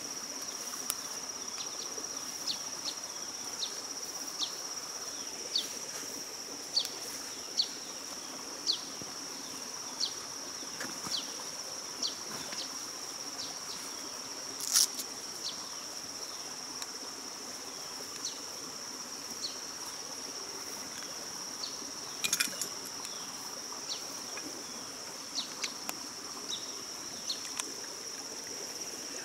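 Forest insects keeping up a steady high-pitched drone, with short high chirps repeating about once a second and two sharp clicks around the middle.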